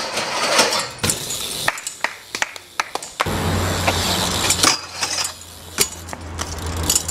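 BMX bike riding sounds: a string of sharp knocks and metal clanks from landings and the bike hitting a steel handrail, with a rough scraping stretch near the middle. A steady low hum comes in about three seconds in.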